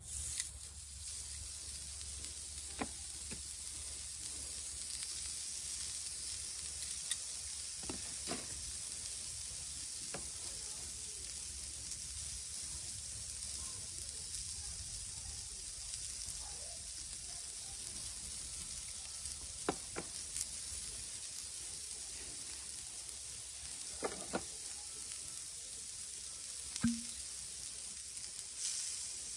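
Steaks sizzling on a hot grill plate: a steady high hiss that starts as the meat goes down, with a few light clicks scattered through it.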